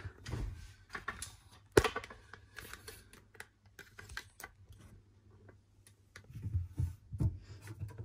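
Light handling clicks and knocks inside an open dishwasher, with one sharp click about two seconds in and a few dull thumps near the end.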